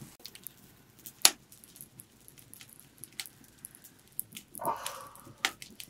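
Wood fire crackling under a cooking pot: scattered sharp pops and clicks, one louder pop about a second in. A short muffled sound comes a little before the end.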